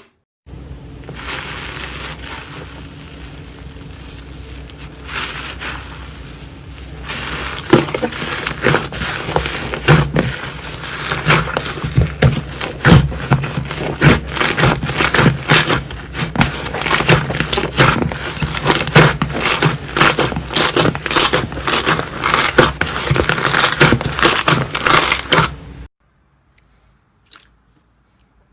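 Slime being squeezed and pressed by hand, making a smoother squishing at first, then dense crackling and popping from about seven seconds in. It stops a couple of seconds before the end.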